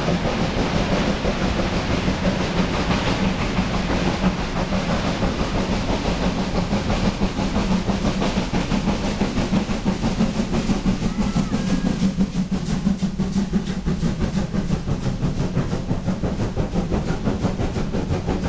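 Passenger coaches of a steam-hauled train rolling over a railway bridge, the wheels clattering rhythmically over the rails above a steady rumble.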